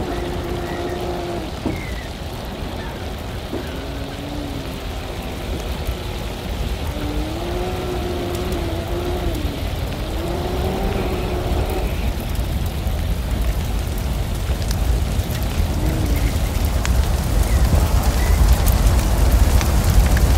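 Side-by-side UTV engine rising and falling in pitch as the throttle comes on and off several times, over a steady rush of tyre and wind noise. The low rumble grows louder near the end.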